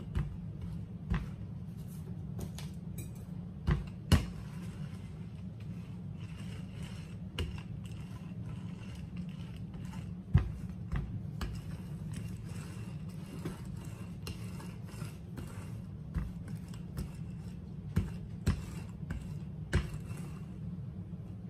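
Rolling pin working dumpling dough on a board, with a few sharp knocks at irregular intervals over a steady low hum.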